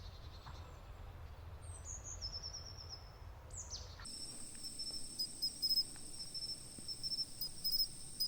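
Nature ambience: a few high bird calls with quick downward-sweeping notes over a low rumble. About halfway through it switches abruptly to insects trilling steadily at a high pitch, with chirps pulsing on top.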